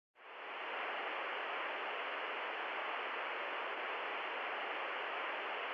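Steady, even hiss of static noise that fades in quickly after a moment of dead silence at the start and holds unchanged.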